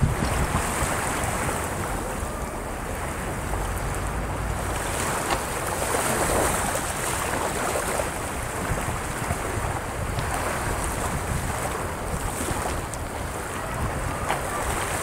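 Small waves breaking and washing up the shore, swelling and ebbing every few seconds, with wind rumbling on the microphone.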